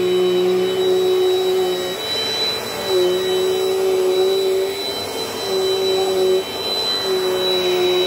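Dirt Devil Dynamite vacuum cleaner running, a steady motor hum with a thin high whine; its motor note dips and returns to pitch about three times.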